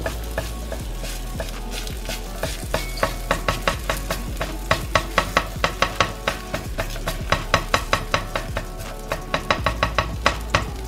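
Fingers patting soft buckwheat-and-potato roti dough flat on a hot iron griddle: a run of quick light slaps, about three to four a second, that starts a second or two in and stops shortly before the end.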